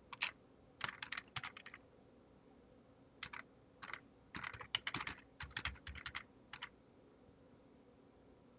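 Typing on a computer keyboard: irregular clusters of quick keystroke clicks, with short pauses between them. The typing stops about two-thirds of the way through.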